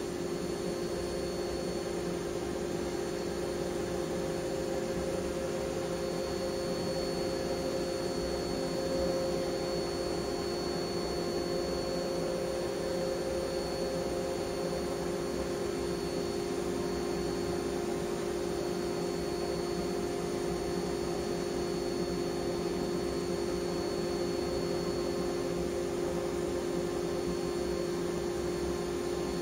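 Shop Sabre CNC router cutting aluminum composite material (ACM) with a 1/8-inch two-flute downcut spiral bit, its spindle set to 16,000 RPM. It makes a steady mechanical hum with a faint high whine.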